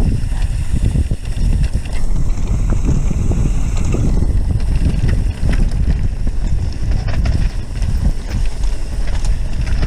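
Wind buffeting the microphone while riding a mountain bike downhill on a dirt singletrack. The tyres rumble over the trail, and the bike makes scattered rattles and clicks.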